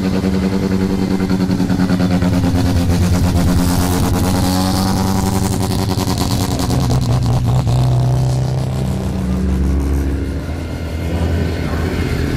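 Loud modified car engines running and revving as cars drive off one after another. A steady exhaust note holds for the first half, then a deeper engine note takes over and climbs near the end.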